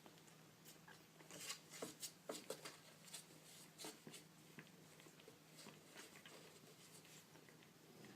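Faint light scratching and tapping, clustered in the first half, over a low steady hum.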